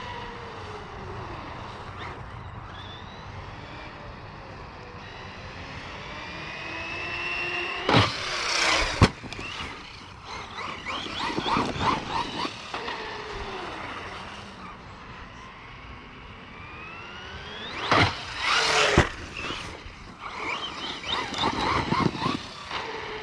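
Losi Lasernut RC buggy's brushless electric motor whining, its pitch rising and falling with the throttle as it is driven. Twice, about ten seconds apart, it comes up loud with sharp knocks, typical of jumps off a small ramp and hard landings, each followed by a stretch of crackling.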